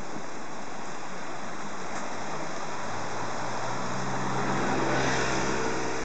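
Steady rush of a rocky river running below. About three seconds in, the low hum of a car engine comes in and grows louder as it approaches.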